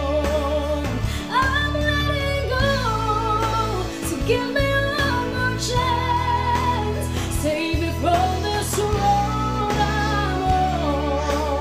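A woman singing a gospel-country ballad, belting long held notes with a wide vibrato over a steady instrumental accompaniment.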